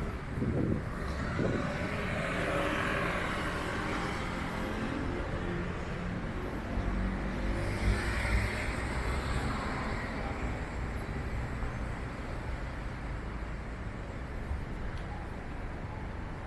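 City street traffic: road vehicles passing, the tyre and engine noise swelling twice, about two seconds in and again around eight seconds.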